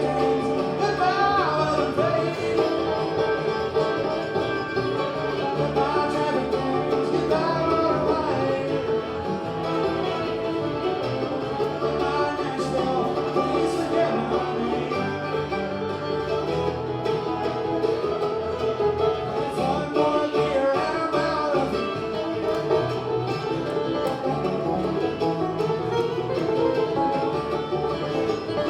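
Live bluegrass band playing, with banjo and guitar to the fore.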